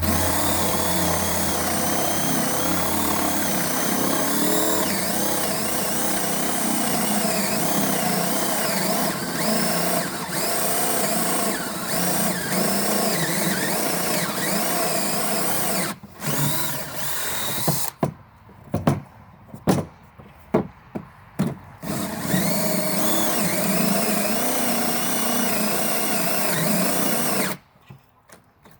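DeWalt DC970 compact 18-volt cordless drill on a 1.4 Ah battery boring a hole under load, the motor whine wavering in pitch as it labours. About sixteen seconds in it stops, runs in a string of short bursts, then runs steadily again and stops near the end.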